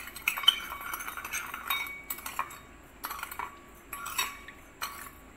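Metal spoon stirring vinegar with dissolving sugar and salt in a ceramic bowl, scraping and clinking against the bowl. The clinks come thick and fast at first, then thin out to a few separate ones after about two seconds.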